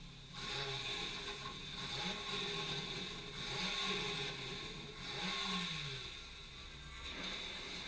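Ferrari 488 Pista's twin-turbo V8 revving up and down several times, heard through a TV's speakers.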